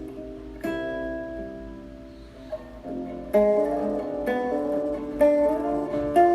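Background music: a plucked acoustic guitar playing slow, ringing chords, a new one struck about every second.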